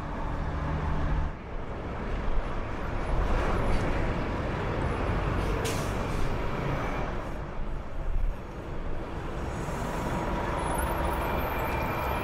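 City transit bus's diesel engine running as the bus drives and passes close by, with a short hiss of air brakes about six seconds in.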